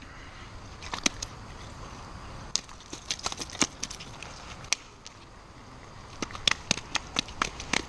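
Irregular sharp clicks and knocks of gravel and small stones shifting on a creek bank while a landed steelhead is held and handled on them, over a steady hiss.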